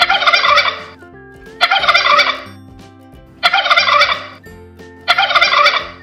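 Domestic tom turkeys gobbling: four gobbles, each about a second long, spaced about a second and a half apart.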